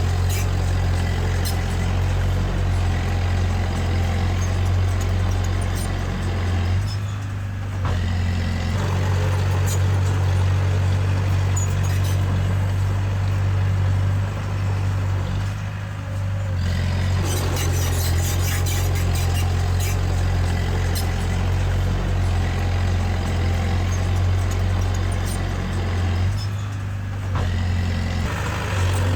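Diesel engine of a Komatsu D20A bulldozer running steadily while working, its drone easing off briefly three times, about every nine seconds.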